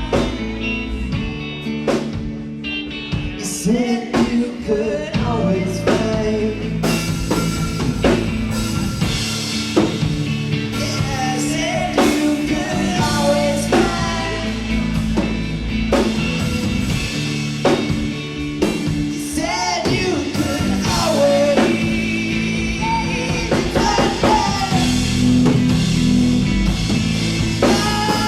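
Live rock band playing: drum kit, electric guitar and bass under a singer's voice, the sung line coming in a few seconds in.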